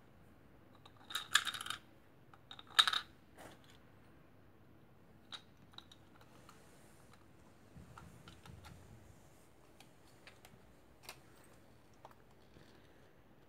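Clicks and rattles of small plastic parts and cells being handled as the battery cap of an 8-in-1 screwdriver with built-in LED torch is refitted. A cluster of clicks about a second in and the loudest click near three seconds in, then a few faint scattered ticks.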